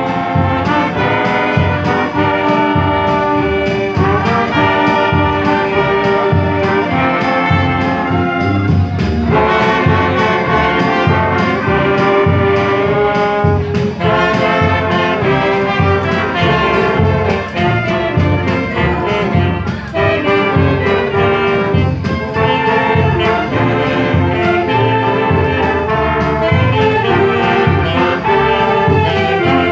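Brass-and-saxophone wind band playing a medley of Christmas tunes, with trombones, trumpets and saxophones on sustained melody notes over a steady pulse in the bass.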